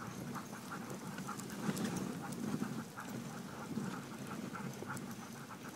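A team of sled dogs running on a snowy trail, their paws padding in a quick uneven rhythm while the sled slides along behind them.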